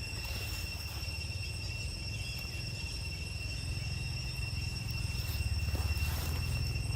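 Steady, unbroken high-pitched insect drone, with a low rumble underneath and a faint rustle about six seconds in.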